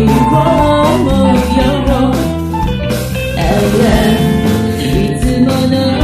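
Rock band music with drums, bass and guitar, and a bending melody line over them.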